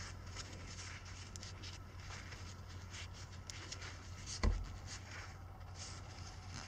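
Blue paper shop towel rubbing and rustling against a small metal dowel pin as it is wiped clean between the fingers, a run of short quick swishes. A single dull thump about four and a half seconds in.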